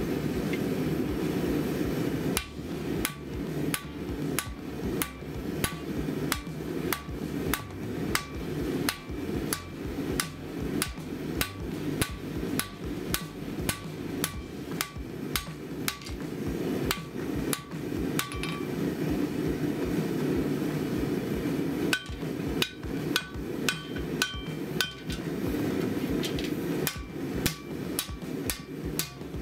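Hand hammer striking a red-hot 5160 steel blade on a steel anvil, about two blows a second, each with a short metallic ring, while the blade's tip is drawn out. The blows stop for about three seconds past the middle, then start again, over a steady low roar.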